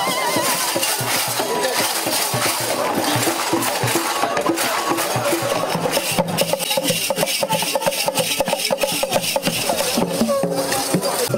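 Traditional dance percussion: a dense, rasping rattle of shakers with sharp strikes that grow thicker from about four seconds in.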